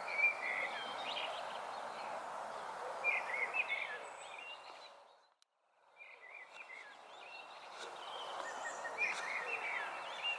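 Small birds chirping and singing over a steady outdoor hiss. The sound fades out about halfway through and fades back in a second later.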